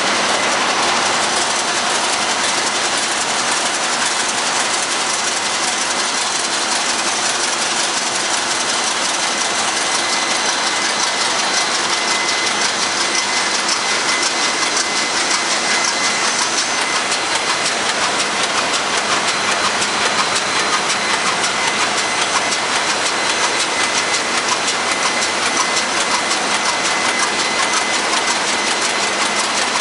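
Loud, steady din of a ship's engine room with its diesel engines running: a dense mechanical clatter with fast ticking, and a steady high whine over it.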